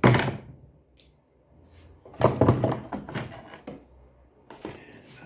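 Tools and gear being handled and packed away: a sharp thunk at the start, a cluster of clattering knocks about two seconds in, and a few lighter clicks near the end.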